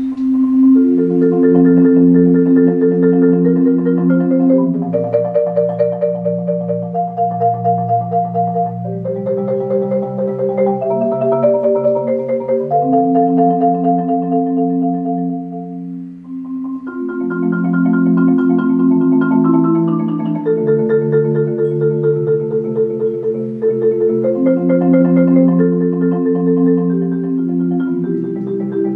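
Solo concert marimba played with four mallets, a Japanese song in long rolled notes and chords. The playing starts right at the beginning, with a short break between phrases about sixteen seconds in.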